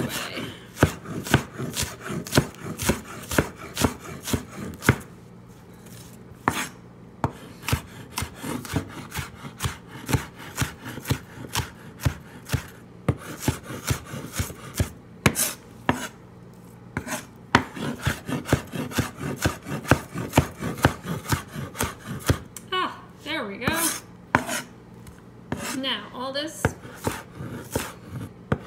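Large kitchen knife dicing an onion on a wooden cutting board: quick, repeated knocks of the blade on the board, several a second, with a couple of short lulls between runs of cuts.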